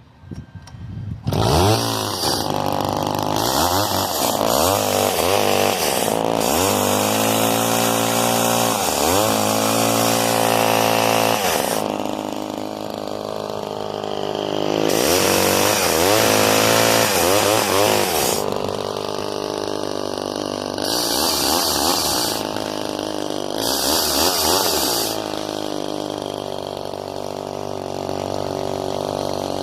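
Old Craftsman two-stroke chainsaw firing up about a second in, then revved repeatedly, each rev rising and falling back toward idle.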